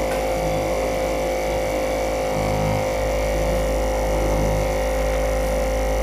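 Steady electrical hum and buzz from a heated LCD separator machine running during glass separation, made up of a low drone with fixed higher tones over it.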